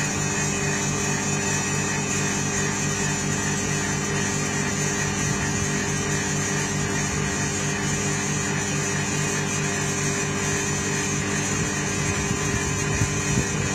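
Chamber vacuum packing machine's vacuum pump running with a steady hum, evacuating the closed chamber toward −0.1 MPa during the vacuum stage of the sealing cycle.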